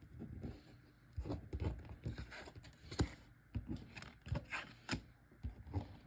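Trading cards being slid and tapped into place on a table: a run of light, irregular clicks, scrapes and rustles.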